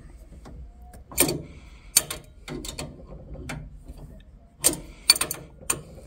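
An adjustable spanner turning a pipe-piercing drain-off valve clamped on a full copper pipe, screwing its piercer into the pipe: about half a dozen sharp clicks and knocks of the spanner on the fitting, several close together near the end.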